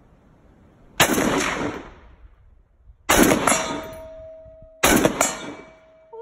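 Degtyaryov DPM light machine gun (7.62x54R) firing three short bursts of automatic fire: about a second in, about three seconds in, and just before five seconds in. Each burst trails off in echo.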